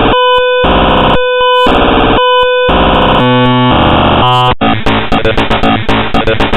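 Harsh, loud synthesized noise from a malware program's audio payload: blocks of buzzy chords that switch about every half second, then an abrupt change about four and a half seconds in to a denser pattern pulsing about four times a second.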